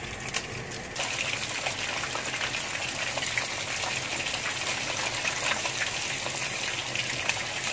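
Mackerel tuna steaks sizzling and crackling steadily in hot oil in a wok, being half-fried. The sizzle grows louder about a second in.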